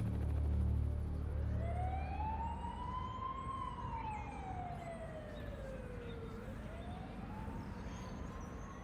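Outdoor tornado warning siren wailing. Its pitch climbs slowly, sinks over several seconds, then climbs again.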